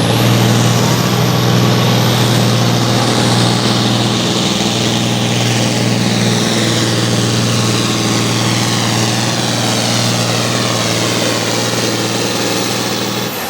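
Altered farm tractor's engine held at full throttle, pulling a sled down the track in one long, steady pass, with a high whine over the engine; the engine comes off throttle near the end as the pull finishes.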